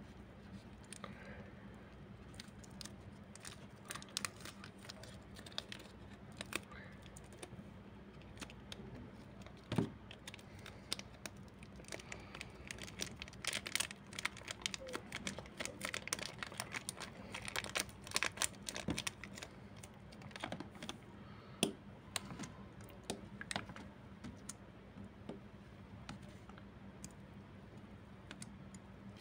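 Utility knife and fingers working a pink magic clay block in its plastic wrapper: a run of small, irregular clicks, crackles and crinkles, busiest around the middle as the wrapper is pulled off. A faint steady hum runs underneath.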